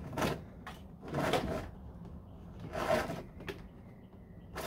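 Wiring for a power door lock kit being pushed and pulled behind a 1969 Corvette's dashboard: a few short scrapes and rustles, with a sharp click about three and a half seconds in.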